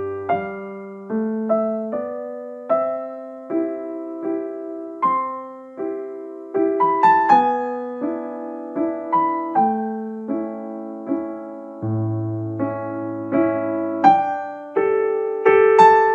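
Background piano music: a slow melody of single notes, each struck and left to fade, with a few deeper bass notes.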